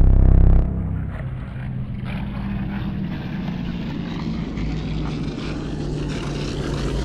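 Cinematic soundtrack drone: a deep rumble that drops away about half a second in, leaving a low steady hum under a crackling noise layer that grows steadily brighter, like a slow filter sweep opening up.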